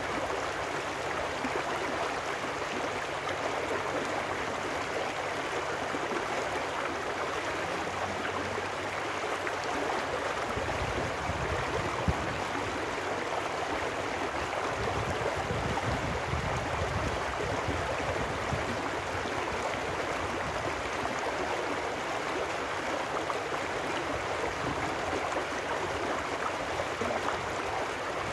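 Small trout stream rushing and splashing over rocks: a steady, unbroken rush of running water.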